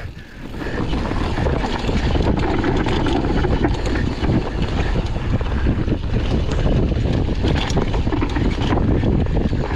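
Downhill mountain bike running down a steep, loose dirt descent: wind on the microphone and tyres on loose ground, with the bike rattling and knocking over bumps. It builds up within the first second.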